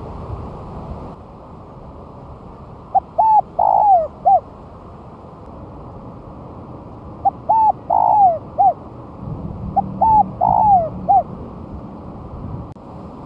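Spotted dove cooing: three song phrases a few seconds apart. Each is a few short coos around a longer, louder middle note.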